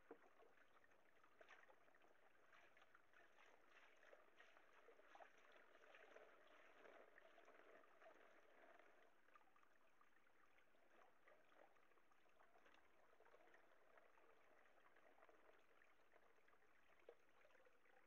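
Faint swishing and splashing of water in a gold pan as it is dipped into a pool and swirled to wash out dirt, with small clicks scattered through.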